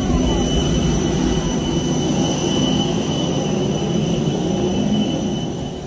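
Airliner on the apron: a steady high jet whine over a loud, low rumble. The whine cuts off near the end.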